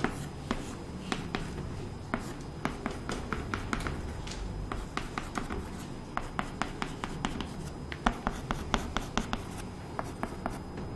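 Chalk writing on a chalkboard: a run of short, sharp taps and scratches as letters and lines are drawn.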